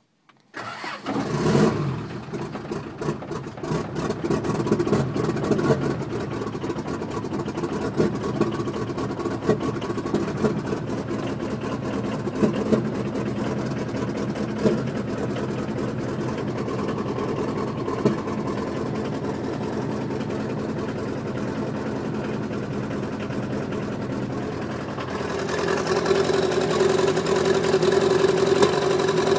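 Custom turbo diesel in a Dodge D50 Power Ram cranks and catches about a second in, then runs with irregular sharp knocks. It has rainwater in its uncovered hood exhaust stack. Near the end it rises to a louder, steadier run. Heard from inside the cab.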